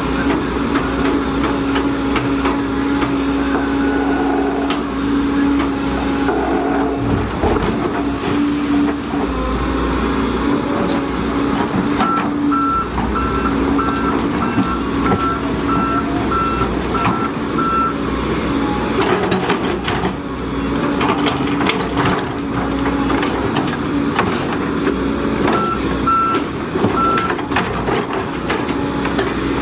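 Volvo EC210D excavator's diesel engine and hydraulics running steadily, with its travel alarm beeping about one and a half times a second for several seconds, starting about twelve seconds in and again near the end. A few knocks come in the middle.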